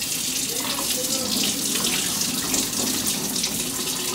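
Kitchen faucet running into a stainless steel sink, a steady rush of water as canned green beans are drained and rinsed under it.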